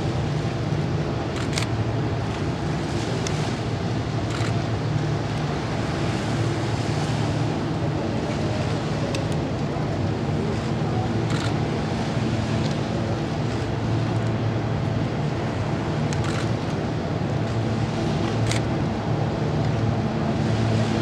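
ShinMaywa US-2 flying boat's four turboprop engines and propellers running in a low pass, a steady low propeller hum with no change in loudness.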